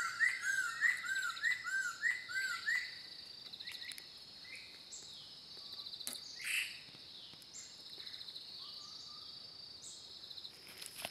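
Wild birds calling in the forest canopy. For the first three seconds one bird repeats short, arched whistled notes, about three a second, then only scattered single calls follow, over a steady high-pitched trill.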